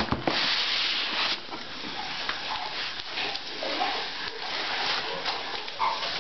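Rustling and scraping of cardboard, foam and plastic packaging as a laptop is unpacked from its box, with a knock at the very start and the densest rustling in the first second or so.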